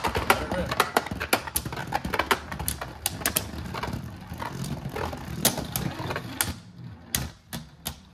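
Two Beyblade Burst tops, Right Artemis and Dusk Balkesh, spinning on a plastic stadium floor. There is a steady whirr and a rapid, irregular run of sharp clicks as they strike each other and the stadium. The sound grows quieter and the clicks sparser towards the end as the tops lose speed.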